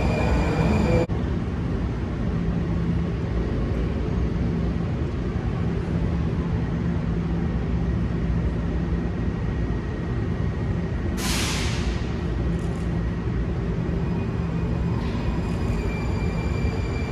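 Washington Metro train standing in an underground station with a steady low hum. About 11 seconds in comes a short, sharp hiss of air, typical of air brakes releasing, and near the end a faint rising whine begins as the train starts to pull away.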